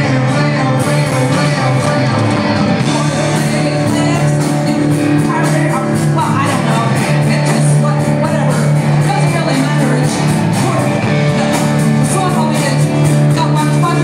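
Rock band playing live, with acoustic and electric guitars over drums and steady cymbal hits, and a voice singing, heard from among the audience in a large hall.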